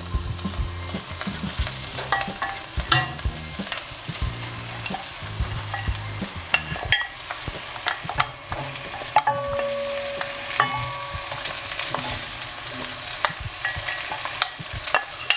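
Chicken carcass pieces, onion, carrot and herbs sizzling in a hot pan, with frequent sharp knocks and scrapes of a utensil stirring them.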